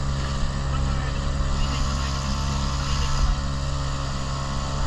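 Motorboat engine running steadily at constant speed, a continuous low drone with a steady pitch.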